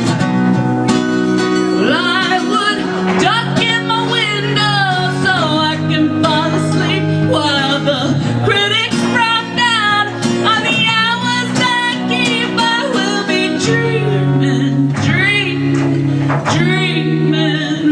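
Acoustic guitar music with a lead melody line above it that wavers in pitch.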